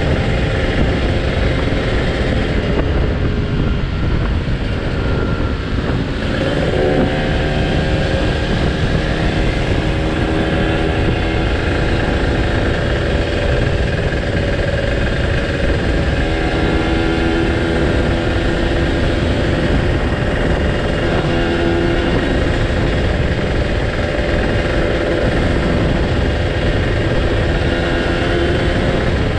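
A Kawasaki Ninja R two-stroke single-cylinder engine fitted in a Yamaha 125Z motorcycle runs at road speed, with wind rushing over the microphone. About five seconds in the engine eases off, then picks up again and carries on steadily.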